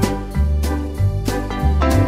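Upbeat instrumental background music with a steady beat and a bass line.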